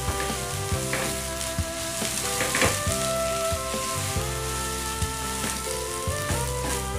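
Macaroni, sausage and egg sizzling in a frying pan while a plastic spatula stirs and scrapes through them, with soft background music underneath.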